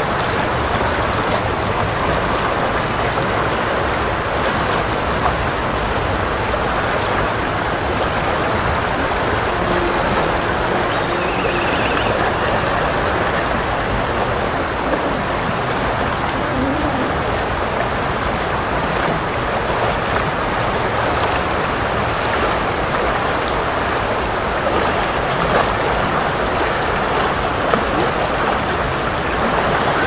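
Fast mountain river rushing: a loud, steady, unbroken roar of water.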